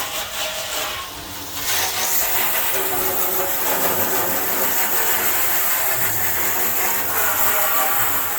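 Water spraying hard from a hose onto a grill: a steady hiss that drops briefly about a second in.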